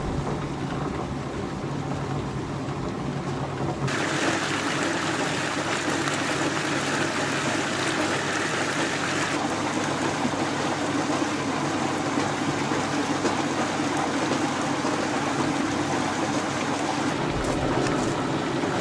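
Hollander beater running: a steady motor hum under the swishing churn of cotton-rag and harakeke pulp slurry circulating round its tub. About four seconds in, the sound changes suddenly to a brighter, hissier churn.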